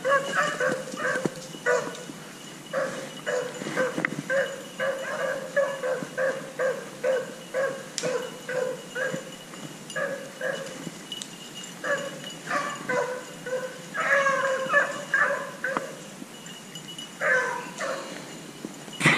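A pack of beagles baying while trailing a rabbit, short repeated barks from several hounds overlapping, a few a second, with brief lulls.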